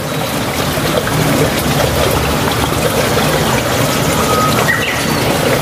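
Steady rush of running water, with a few faint bird chirps over it.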